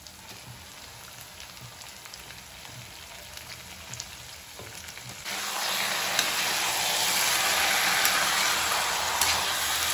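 Marinated chicken pieces sizzling in hot mustard oil with fried onions in a kadai: a faint, steady sizzle that becomes much louder suddenly about five seconds in, with a few light clicks.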